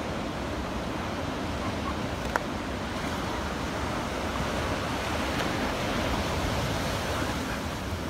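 Surf breaking and washing up a sandy beach, a steady rushing noise with some wind rumble, and a single brief click about two and a half seconds in.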